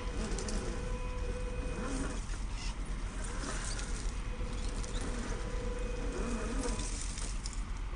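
Small electric motor of a 1/10-scale RC rock crawler (550-size 21-turn brushed motor and gearbox) whining steadily as it drives. The whine wavers and drops away for a moment about two to three seconds in, over scattered clicks and ticks.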